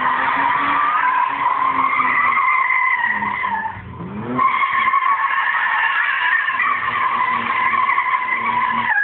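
BMW doing a burnout, its tyres squealing in a steady high-pitched screech. About four seconds in the squeal drops out briefly as the engine revs rise, then the screech resumes.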